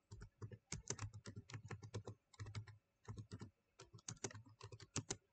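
Typing on a computer keyboard: a quick, irregular run of faint key clicks with a few short pauses.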